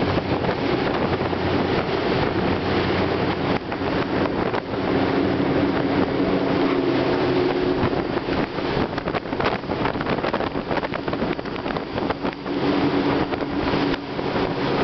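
Speedboat under way at speed: its engine running as a steady drone under the rush of wind buffeting the microphone and water hissing past the hull.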